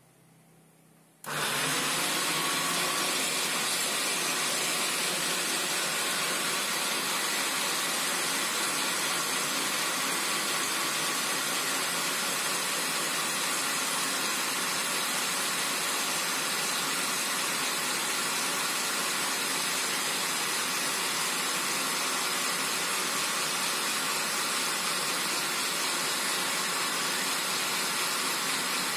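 Bolde Super Processor food processor's electric motor switched on about a second in, then running steadily, spinning its citrus-juicer reamer under a lemon half pressed down on it.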